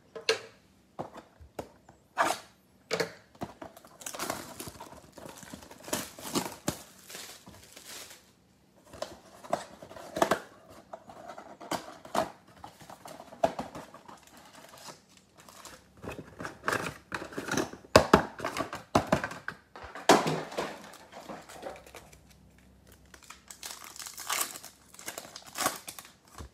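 A cardboard trading-card box being torn open and its foil card packs handled: irregular tearing, crinkling and rustling, loudest in the second half.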